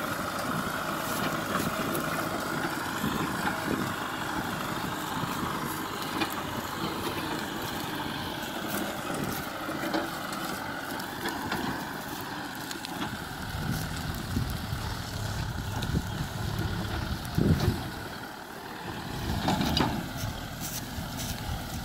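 Kubota M6040SU tractor's diesel engine running steadily while it tows a trailer across a field, with a short knock about three-quarters of the way through.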